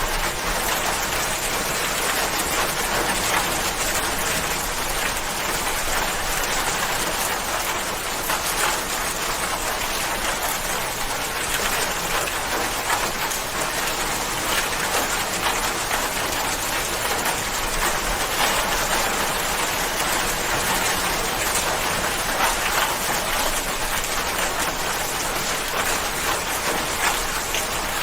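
Steady rain falling, an even hiss with many fine drop ticks on a surface.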